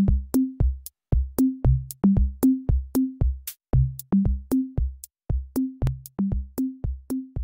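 Background music: an electronic drum-machine beat of deep kick drums, about three a second, each carrying a short bass note that steps between a few pitches, with light high ticks on top.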